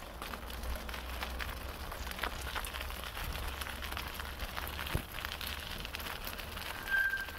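Bicycle tyres crackling and crunching over leaf litter and gravel on a woodland track, with a steady low rumble underneath. A short, high, steady tone sounds briefly near the end.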